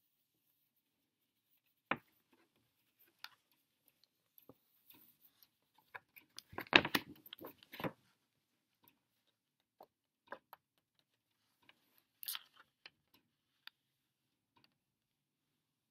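A paper sheet being handled and turned over: scattered light clicks and taps, with a short stretch of crackling paper rustle about six to eight seconds in.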